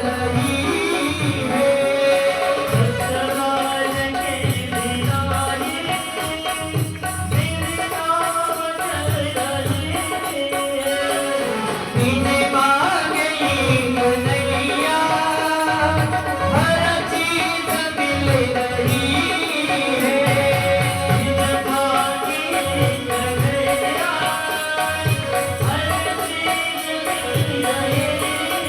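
A song: a voice singing a gliding, sustained melody over a steady hand-drum beat.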